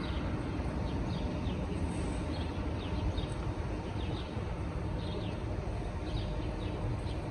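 Street ambience: a steady low traffic hum with birds chirping, many short high falling chirps scattered throughout.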